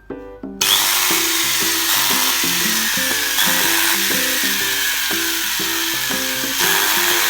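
A cordless power tool's electric motor starts about half a second in and runs steadily at speed. It makes a loud whir with a faint high whine that slowly drops in pitch, and it gets a little louder near the end. Background music with a plucked melody plays underneath.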